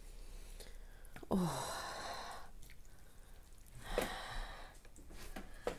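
A woman sighs: a long breathy exhale with a falling voice about a second in, then a shorter breathy puff a few seconds later.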